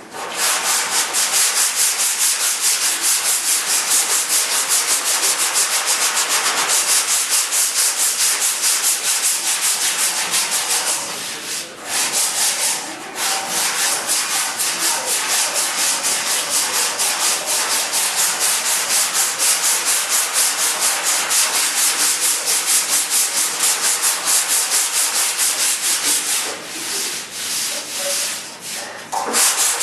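Sandpaper being rubbed back and forth by hand in quick, even strokes, about three a second, with a short break about a third of the way through and weaker strokes near the end.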